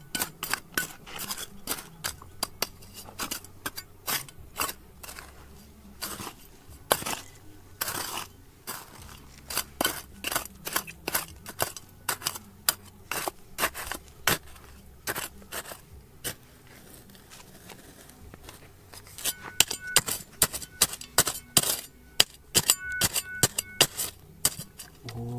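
Rocks and gravel clinking and scraping as they are dug through, an irregular run of sharp clicks and knocks that comes faster near the end.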